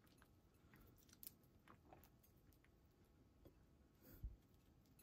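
Near silence: room tone with a few faint short clicks, about a second in and just after four seconds.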